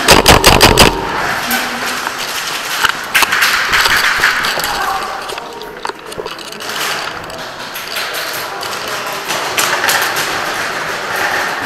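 Airsoft gunfire: a rapid string of sharp cracks, about eight in under a second, right at the start, then a few scattered shots and clacks over a steady noise of the game in a large hall.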